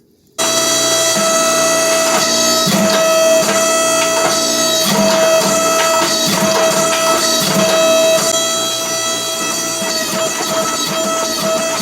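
Background music, a sustained drone with a melody over it that sounds like bagpipes, starting abruptly about half a second in.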